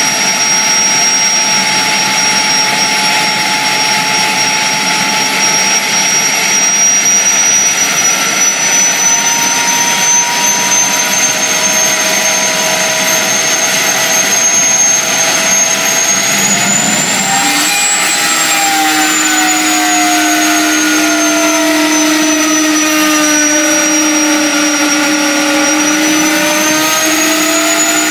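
A 1950s Budworth jet engine running loud, with a high turbine whine over a dense rush of noise. The whine creeps up in pitch, rises and falls again about two-thirds through, then sinks and swells once more near the end. A steady lower hum joins just after the first swell.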